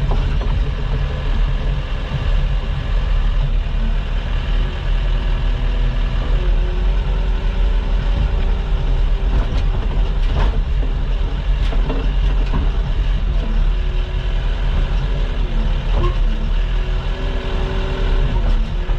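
Komatsu D39PX crawler dozer's diesel engine running under load with a steady low rumble, its pitch shifting now and then, and a few sharp clanks from the machine.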